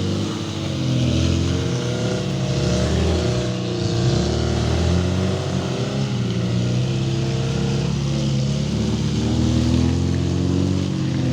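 Off-road 4x4's engine running under load, its revs rising and falling again and again as it works through a slippery track.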